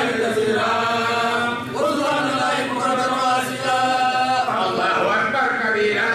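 A voice chanting in long, held melodic phrases, with short breaks between them about every one and a half to three seconds.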